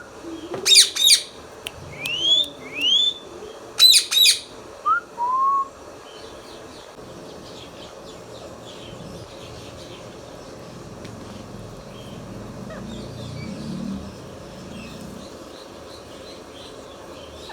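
Indian ringneck parakeet calling: two loud, harsh screeches about a second and four seconds in, with short rising whistles between and after them. From about six seconds on, only faint soft chirps remain.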